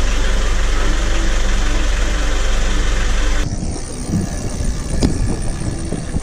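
Inboard marine diesel engine running steadily, heard loud and close in the engine compartment. About three and a half seconds in it cuts to a quieter, gusty rush of wind and water under sail, with a single knock about five seconds in.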